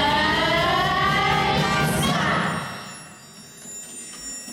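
Musical-theatre number from singers with a live pit band, ending on a long held note about two and a half seconds in, followed by a quieter lull.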